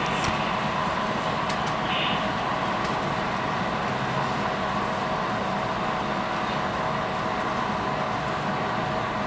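Model railroad trains running on the layout: a steady rolling hum of wheels and motors on the track, with a few faint clicks near the start.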